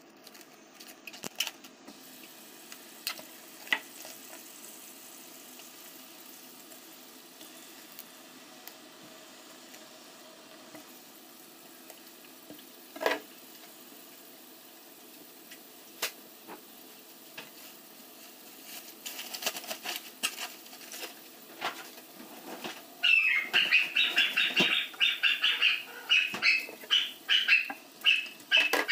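Kitchen tap running steadily into a stainless steel sink, with scattered knocks and clicks as produce and a knife are handled. About 23 seconds in, louder, rapidly pulsing splashing starts as hands wash greens under the stream.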